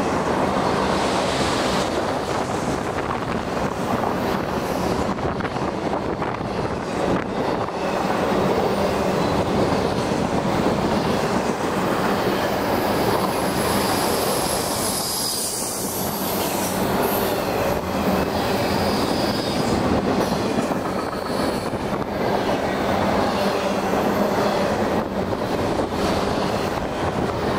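Union Pacific double-stack container train's loaded well cars rolling past at speed: a steady rumble and clatter of steel wheels on the rails, with thin high wheel squeals now and then.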